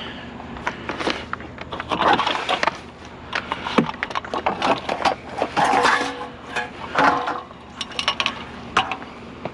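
Irregular knocks, clatters and scraping as scrap items are handled and shifted on a trailer, with louder scuffing bursts about two, six and seven seconds in.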